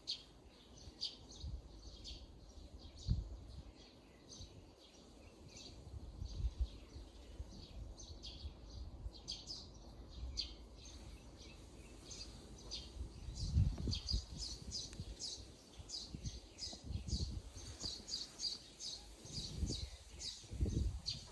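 Small birds chirping in quick, short high calls, becoming busier and more continuous about halfway through, with scattered low thumps and rumble underneath.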